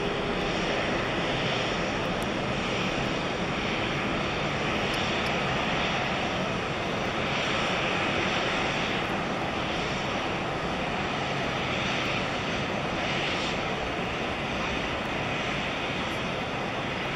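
Boeing E-4B's four General Electric CF6-50 (F103) turbofans at takeoff power as the jumbo jet climbs away: a steady, dense jet noise spread from deep rumble to hiss, holding an even level throughout.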